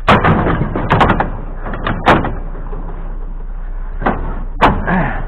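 Scrap being thrown into a trailer: a series of sharp metallic bangs and clatters, the loudest at the very start and about two seconds in, with two more knocks near the end.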